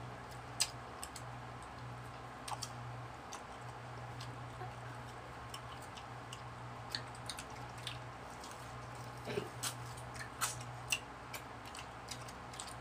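Close-up eating sounds of people biting and sucking on ripe mango flesh: scattered wet lip smacks and small slurps, a few louder ones near the end, over a steady low hum.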